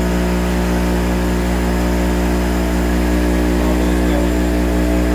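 Multiscore MR 21 panel rip saw running: a steady machine hum with several steady tones, getting slightly louder about three seconds in as its hydraulic chain-feed drive is being turned on slowly at the valve.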